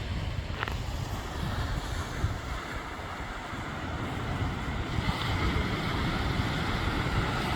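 Ocean surf washing on the shore, with wind rumbling on the microphone.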